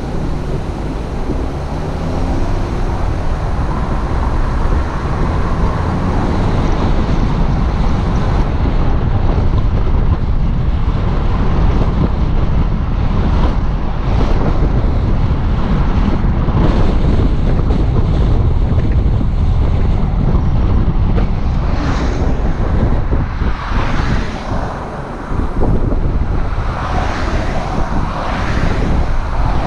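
Steady wind rush and road noise from a moving car.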